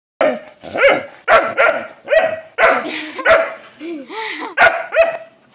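A dog barking repeatedly: about nine short barks in quick succession, with a wavering cry between them about four seconds in.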